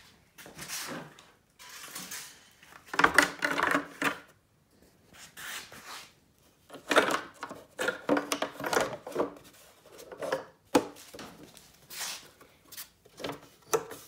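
Irregular metallic clanks and rattles of parts being handled, loudest about three seconds in and again about seven seconds in.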